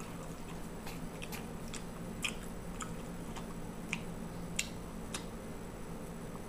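A person chewing food, with short wet mouth clicks about every half second over a steady low hum.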